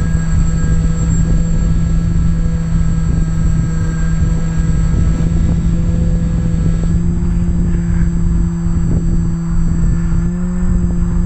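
The electric motor and propeller of an Airwing Wingsurfer X2 RC glider droning steadily in flight, heard from on board with wind rushing over the microphone. The pitch steps up slightly about seven seconds in as the throttle changes.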